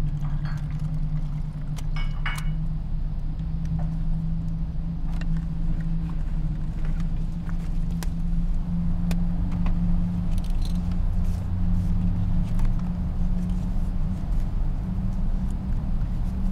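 A steady low hum, with small clicks and rattles of objects being handled.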